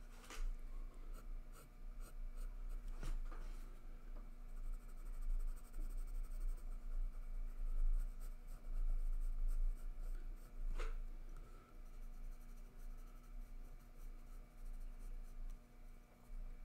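Graphite pencil drawing on sketchpad paper: continual quick, scratchy strokes with a couple of sharper ticks, over a low steady hum.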